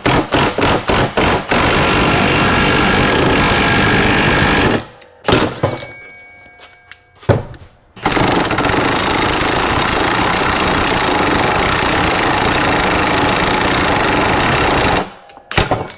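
Impact wrench hammering the screw of a ball joint press, pressing a new metal sleeve and nylon bushing into a steering drag link's pitman arm eye. A few short bursts at first, then two long runs of several seconds each with a pause of about three seconds between them.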